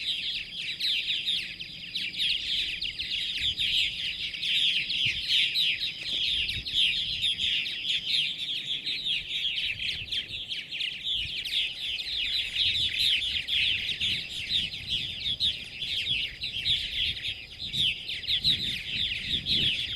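A purple martin colony chattering: many birds calling at once in a dense, unbroken stream of short chirps. A steady thin high tone runs beneath it and drops out for a few seconds near the middle.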